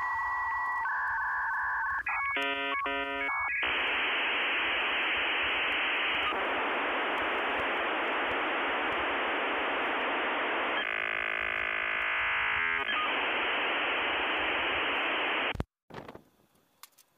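Dial-up modem connecting over a phone line: steady tones, then a quick run of touch-tone dialing, then a long hiss of handshake noise with a stretch of buzzing tones partway through. It cuts off suddenly about a second and a half before the end.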